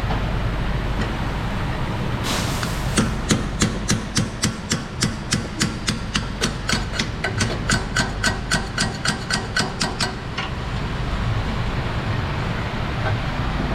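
Rapid, evenly spaced metallic taps, about three or four a second for some seven seconds, from a hand tool working on metal, over a steady low workshop hum.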